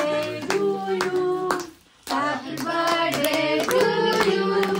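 A group singing "Happy Birthday" together while clapping along in time, with a short break about two seconds in.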